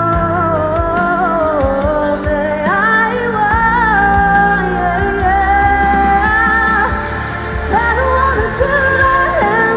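Live pop music: a woman singing long, bending notes into a microphone over a backing track with a steady bass and drum beat.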